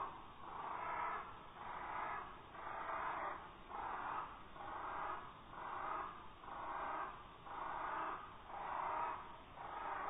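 Bull-headed shrike calling, slowed down: a steady series of drawn-out calls without a clear pitch, about one a second.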